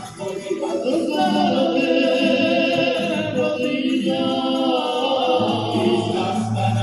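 A tuna, a student ensemble of men in the Spanish tradition, singing together in chorus over guitars and lutes.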